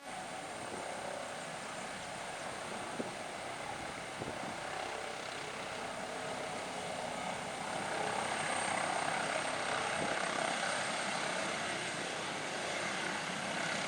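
Airbus H145 twin-turbine helicopter running, a steady rush of turbine and rotor noise with a faint high whine, gradually growing louder.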